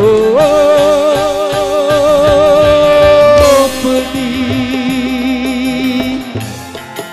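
Live dangdut band music: a long held melodic note with wide vibrato over keyboard, bass and drums, loudest in the first half and stopping about three and a half seconds in, followed by a lower held vibrato note.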